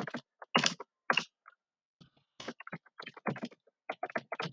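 Typing on a computer keyboard: a run of separate key clicks, a few at first, then a pause of about a second, then a quicker string of keystrokes.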